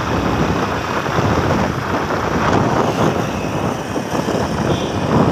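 Steady noise of riding a motorbike on the road: the bike's engine and the rush of wind over the microphone.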